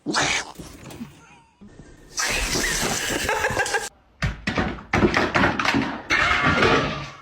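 Music with a voice, in short segments that cut in and out abruptly.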